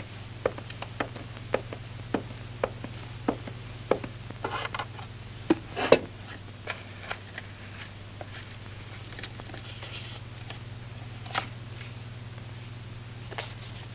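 Footsteps, about two a second, over a steady low hum; they stop about four seconds in, followed by a brief rustle and a sharp knock, then only a few scattered taps.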